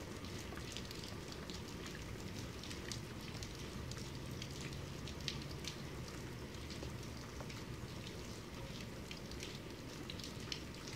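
Steady medium-to-hard rain falling, an even hiss with many individual drops ticking sharply through it.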